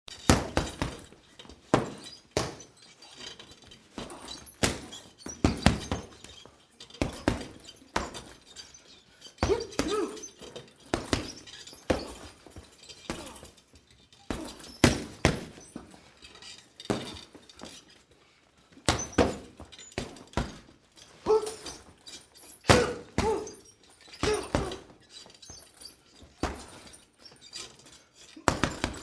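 A heavy punching bag being hit with irregular punches and quick combinations, each a dull thud. Several punches come with short grunts from the boxer.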